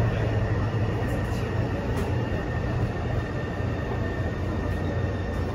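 Taipei Metro C301 subway train heard from inside the car: a steady rumble with a low hum and a faint high whine underneath, with no sudden noises.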